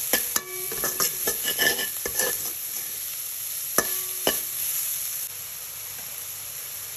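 A metal spoon stirring and scraping chopped onion and garlic frying in olive oil in a stainless steel pan, with a steady sizzle underneath. The spoon clicks and scrapes against the pan, some hits ringing briefly, and stops about four seconds in, leaving the sizzle.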